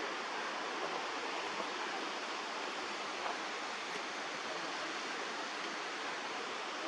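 Steady rushing of a mountain creek, an even hiss of flowing water.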